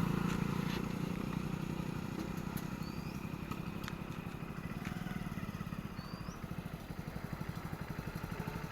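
A small engine idling steadily with an even, rapid low pulse. Three short, high rising chirps sound over it, about three seconds apart.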